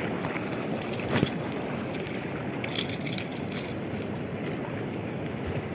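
Steady wash of wind and surf along a rocky tidal shore, with two short sharp knocks, about a second in and near three seconds.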